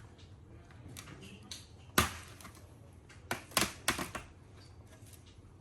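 A series of sharp clicks and snaps of hard parts being handled: a single loud snap about two seconds in, then a quick cluster of four clicks a little later.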